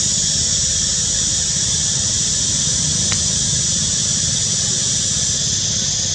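Steady, high-pitched drone of cicadas in the forest canopy, unbroken throughout, over a low rumble, with a single faint click about three seconds in.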